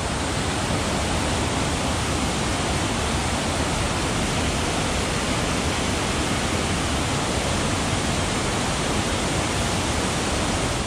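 Steady, even rush of water falling over a dam's waterfall.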